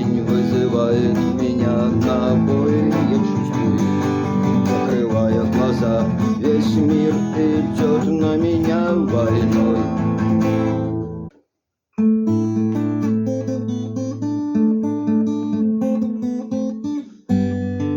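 Acoustic guitar strummed, playing the song's chord accompaniment. The sound cuts out abruptly for under a second about 11 seconds in, then the strummed chords resume, with a brief dip again near the end.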